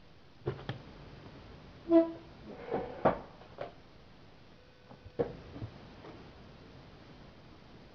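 A few scattered knocks and clicks of objects being handled on a tabletop, paper and a marker being set out for drawing; the loudest, about two seconds in, has a brief pitched ring.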